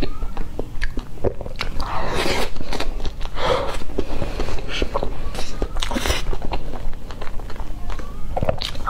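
Close-miked mouth sounds of chewing and smacking on a mouthful of soft cream layer cake. Short clicks and scrapes of a metal fork cut through the cake onto its foil board.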